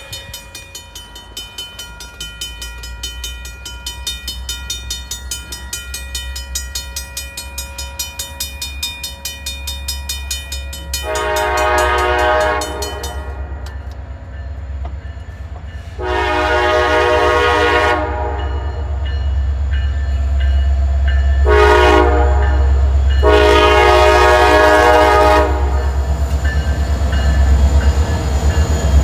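Air horn of an approaching CSX SD40-3 diesel locomotive sounding the grade-crossing signal: long, long, short, long. Under it the locomotives' low diesel rumble grows louder as the train draws near.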